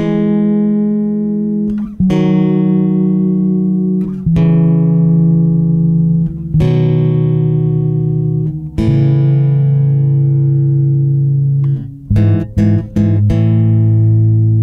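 Background music: guitar chords held and changing about every two seconds, with a few quick strokes in a row near the end.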